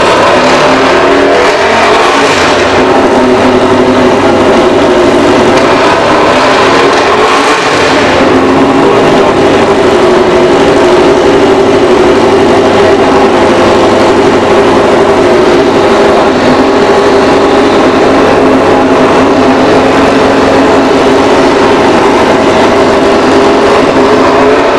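MotoGP racing motorcycle engine running on a stand in a pit garage at a steady, loud high idle, with a few brief rises in revs in the first several seconds.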